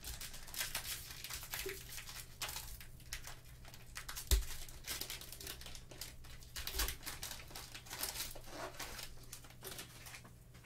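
A trading-card pack's wrapper being torn open and crinkled by gloved hands as the cards are slid out, in a run of short rustling strokes that thins out near the end. One louder knock comes about four seconds in.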